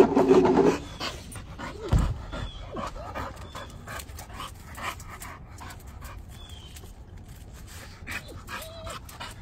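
A dog panting quickly, with a few short whimpers, after a loud held, pitched sound in the first second.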